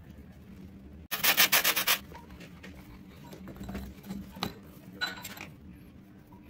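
Metal hand tools scraping and digging damp casting sand away from a freshly cast lead piece. A loud gritty rasp starts suddenly about a second in and lasts under a second. Quieter scraping follows, with a few light clicks of tool on metal and another short rasp about five seconds in.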